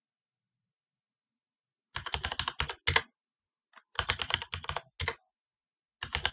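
Computer keyboard typing: after about two seconds of silence, a quick run of keystrokes ending on a firmer keypress, then a second short run about a second later, and a third starting near the end.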